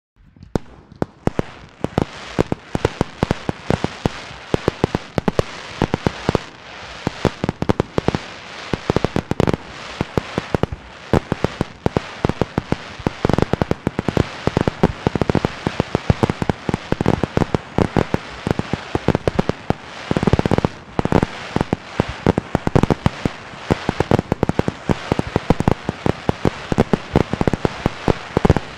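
Large fireworks display: a rapid, unbroken barrage of bangs and crackling, several bangs a second over a continuous hiss, starting abruptly.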